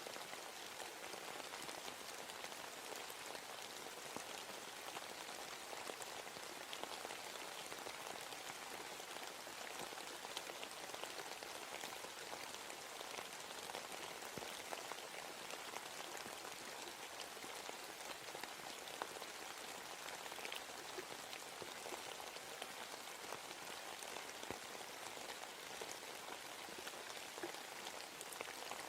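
Steady rain falling in a forest, a dense patter of drops on leaves and the ground.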